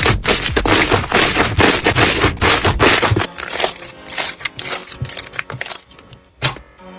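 Crunchy slime being squeezed and pressed by hand: a dense run of crackling and popping that thins to sparser clicks about three seconds in, with soft music underneath.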